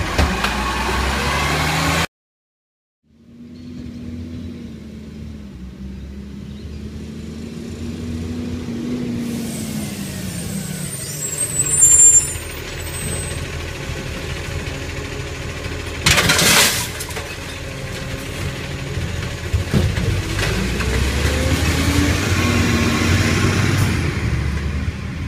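Side-loader recycling truck running, its engine note rising and falling as the lifting arm works bins. A loud knock comes about halfway, and a short air-brake hiss soon after; the sound drops out for about a second near the start.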